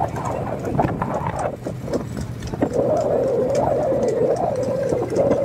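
Bullock cart rolling along a paved lane, its wheels and frame rattling and knocking. About halfway through, a steady wavering tone sets in and continues.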